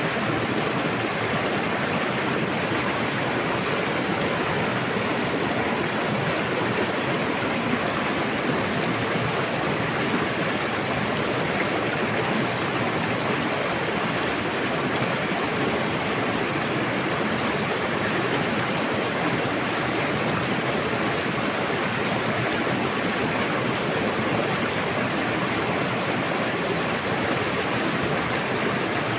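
A fast-flowing river rushing steadily, an even wash of water noise without a break.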